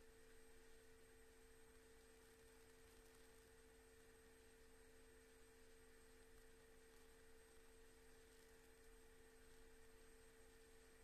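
Near silence: faint room tone with a steady high hum.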